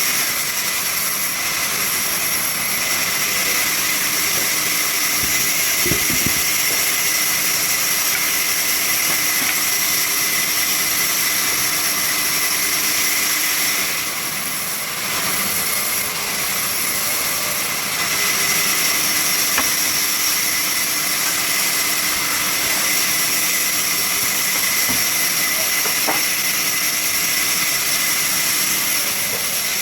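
Sawmill saw machinery running steadily, with a high, even whine; the level dips briefly about halfway through, then picks up again.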